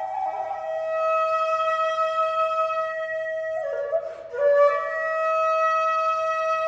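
Background music: a solo flute holding long sustained notes, with a short dip and bend in pitch about four seconds in before settling on a held note again.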